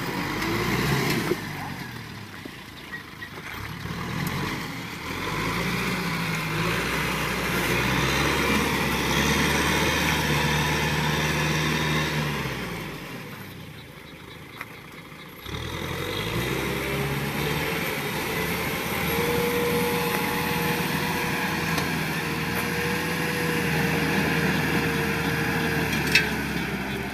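Kubota M6040 tractor's diesel engine working hard in mud, its pitch rising and falling as it revs up and drops back. A steady whine joins in over the later part.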